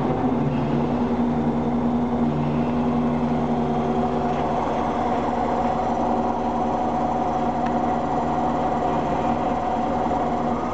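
Mobile crane's engine idling steadily, with a higher steady whine joining about a third of the way in.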